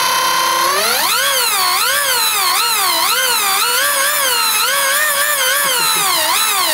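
A 2000-watt e-bike hub motor spinning the rear wheel, which drives the friction-roller and cable drive to a plastic propeller running in the air, unloaded. It whines and the pitch climbs steeply about a second in, then rises and falls about twice a second as the throttle is worked.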